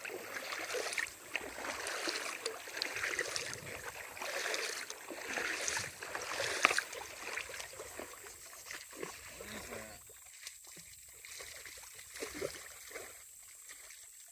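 Water splashing and sloshing as a small hooked bass is brought in through the creek, with a sharp knock about seven seconds in; quieter in the second half.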